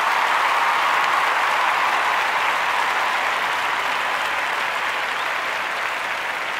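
Crowd applauding steadily, easing off slightly toward the end.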